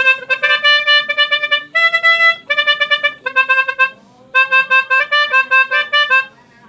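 Indonesian bus 'telolet' musical air horn playing a long tune of short, stepped pitched notes, with a brief pause a little past halfway.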